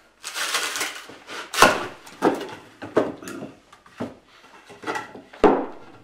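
Larch wood being split into shingles with a shingle iron: a crackling tear of wood fibres near the start, then a series of sharp wooden knocks and cracks, about half a dozen, the loudest about one and a half seconds in.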